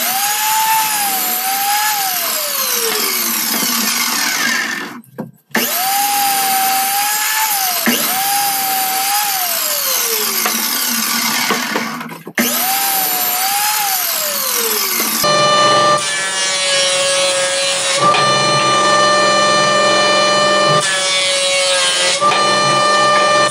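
Electric miter saw started four times: each time its motor whines up, cuts through a pallet board, then winds down as the blade coasts to a stop. Then a benchtop jointer runs with a steady hum, turning rougher twice as boards are passed over its cutterhead.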